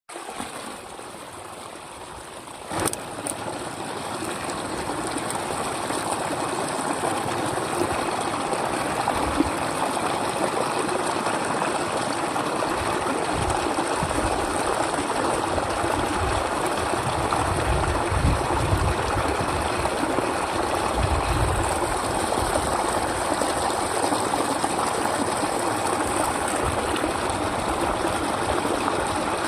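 Steady running water, like a stream or trickle. A single sharp click comes about three seconds in, after which the water sound grows louder, with some low rumbles midway.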